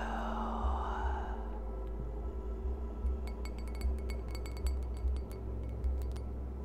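Ambient electronic music with a pulsing low beat and a swelling whoosh near the start. In the second half comes a run of light, glassy clinks that ring at the same high pitches.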